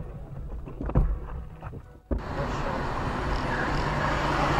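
Dashcam audio: a low rumble with a few short knocks, then an abrupt change about two seconds in to the steady road and engine noise of a car driving in traffic, heard from inside the cabin.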